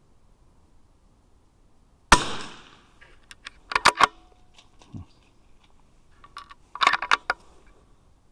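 A single .22 rimfire rifle shot about two seconds in: a sharp crack with a short echoing tail. It is followed by two clusters of metallic clicks, as the action is worked and the next round is loaded.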